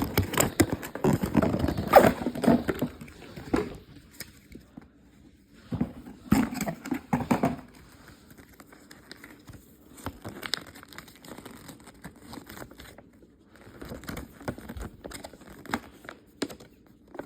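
Toy packaging being handled: rustling, crinkling and scraping in irregular bursts as the box contents are pulled out. It is busiest in the first few seconds and again about six to seven seconds in, then fainter scattered handling.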